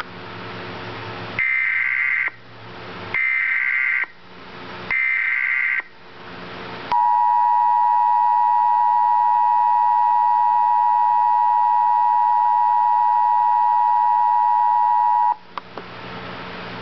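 Emergency Alert System header: three short bursts of warbling SAME data tones over radio hiss, then the steady two-tone EAS attention signal for about eight seconds, which cuts off abruptly back to hiss.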